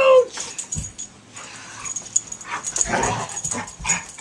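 Dog roughhousing with a person: a short high yip just at the start, then scuffling and knocks with a breathy huffing stretch about three seconds in.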